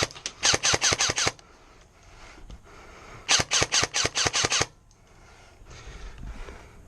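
Airsoft gun firing close by in two quick strings of shots, about seven or eight a second. The first string ends just over a second in, and the second runs about a second and a half from a little past three seconds in.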